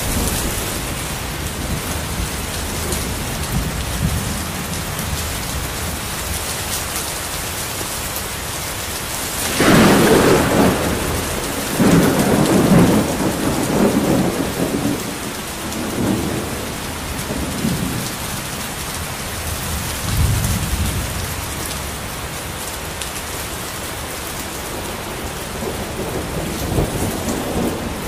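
Steady rain with thunder: a sharp, loud thunderclap about a third of the way in, then rolling rumbles that die away over several seconds, and a fainter rumble later on.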